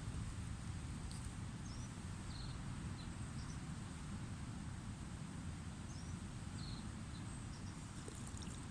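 Outdoor background ambience: a steady low rumble of noise, with a small bird chirping a short group of high calls twice, once in the first two seconds and again around the middle.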